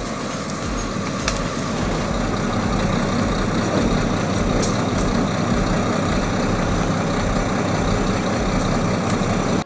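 Heavy earth-moving machine's diesel engine running steadily under load, with a couple of short sharp cracks about a second in and near the middle.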